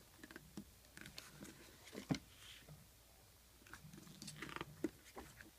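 Glossy booklet pages being handled and turned by hand: scattered faint crinkles and clicks of paper, with a sharper snap about two seconds in and a cluster of rustling as a page turns about four seconds in.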